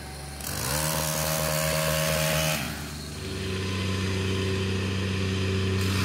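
Pole saw engine revving up and running at full throttle for about two seconds, then an abrupt change to the lower, steady running of a compact track loader's engine.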